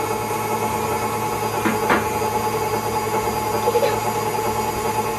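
KitchenAid tilt-head stand mixer running steadily, its beater turning butter in the stainless steel bowl, with a couple of light knocks about two seconds in.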